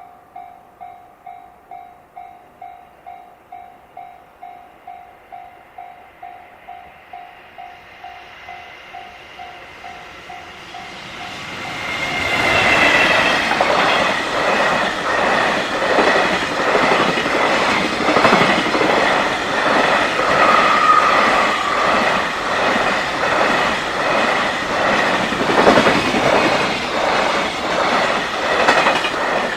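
Japanese level-crossing alarm bell ringing about twice a second. About twelve seconds in, a JR Freight freight train passes over the crossing, loud, its wheels clattering rhythmically over the rail joints, with the crossing bell still ringing beneath.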